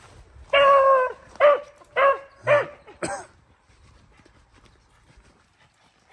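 Beagle giving tongue: one long baying call, then four short barks about half a second apart, each falling in pitch, from a hound working a rabbit's scent line.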